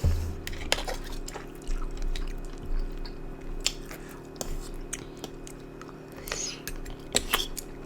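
A person chewing food close to the microphone, with soft wet mouth clicks and smacks scattered through, over a faint steady hum.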